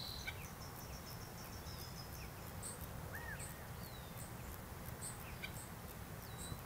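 Several wild birds calling over a steady low rumble: a fast series of short, high notes in the first two seconds, a single arched whistle about three seconds in, and a few short down-slurred calls later on.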